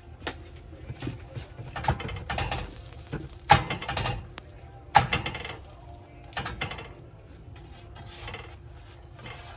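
Kitchen clatter from cooking at a skillet: a string of sharp metal-and-dish knocks, like utensils striking a pan and plates, with rustling handling between them. The loudest knocks come about three and a half and five seconds in.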